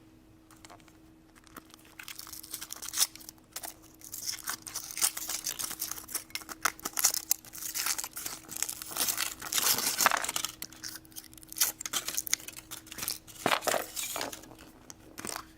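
Foil wrapper of a chocolate egg being crinkled and torn off by hand, irregular rustling with small sharp clicks, starting after a couple of quiet seconds.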